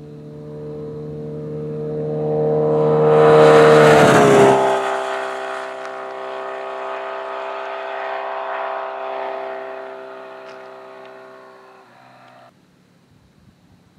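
Kawasaki Z900RS Cafe's inline-four engine passing at about 60 mph through a 14-inch street-core muffler. A steady exhaust note grows louder, drops in pitch as the bike goes by about four seconds in, then fades as it moves away.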